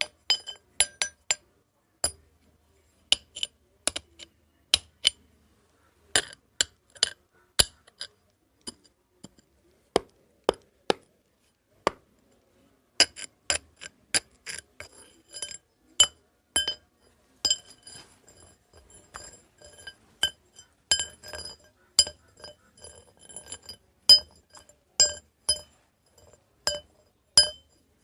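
Metal rods struck together, clinking and ringing at the same few pitches with each strike. The strikes come irregularly, a few seconds apart at first, then in quicker runs from about halfway through.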